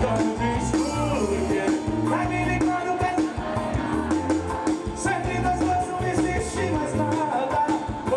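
Band music with a singing voice and a steady beat.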